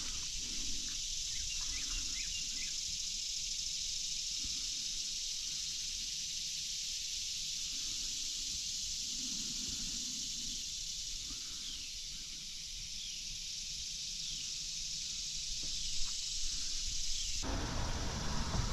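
Steady high-pitched insect chorus with a few short falling bird chirps. Near the end the chorus drops away abruptly and lower rustling and knocking take over.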